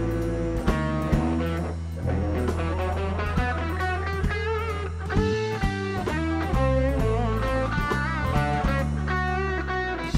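Rock band playing: an electric lead guitar plays held, wavering notes with string bends and vibrato over a steady bass line and a drum kit.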